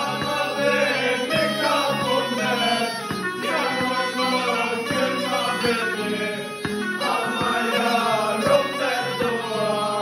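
Black Sea tulum bagpipe playing a folk melody, with a guitar strummed in a steady beat and a group of men singing along.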